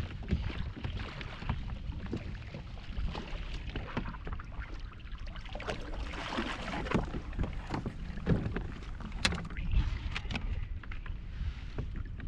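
Water and wind noise around a kayak on the sea, the wind buffeting the microphone, with scattered knocks and clicks of handling.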